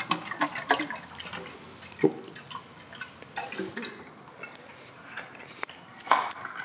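Hands handling a welded aluminium coolant tank: irregular light taps and knocks on the metal, a sharper knock about two seconds in and another near the end, with liquid moving inside the tank.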